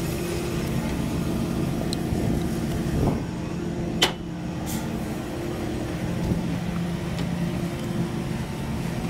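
A diesel engine idling steadily, a low even hum, with a couple of sharp metallic clicks about four seconds in.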